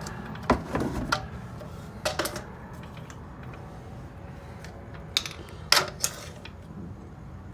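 Torque wrench and socket on a tie rod end's castle nut being tightened to 36 foot-pounds: sharp metallic clicks and clanks in three short clusters, about half a second in, about two seconds in, and around five to six seconds in.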